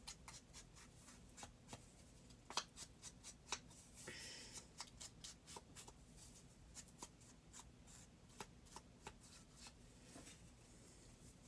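Faint dabbing and rubbing of a round ink applicator against a paper tag: a run of light irregular taps, with a short scuffing rub about four seconds in.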